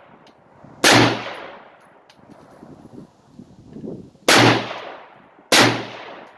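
Three rifle shots from a Springfield Saint Victor AR-15 in 5.56: one about a second in, then two more about a second apart near the end. Each crack is followed by a short echoing decay under the bench's roof.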